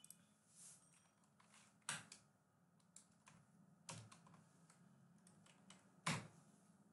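Faint computer keyboard typing: scattered, irregular keystrokes, with three louder key presses about two seconds apart.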